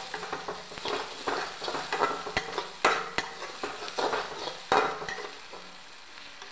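Spice paste with spring-onion and garlic greens frying in oil in a kadhai, sizzling while a spoon stirs and scrapes it in irregular strokes. The stirring stops about five seconds in, leaving a fainter sizzle.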